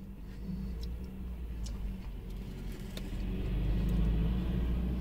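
A car engine's low rumble that swells to a peak about four seconds in and then eases off, with a few light clicks of a plastic spoon against a paper cup.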